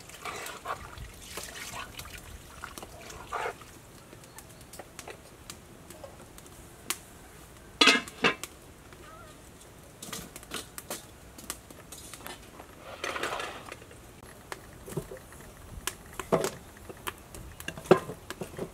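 Metal ladle stirring and knocking against a large metal cooking pot of soup, with the pot's lid set on with a clatter about eight seconds in; more scattered knocks of metal on metal follow.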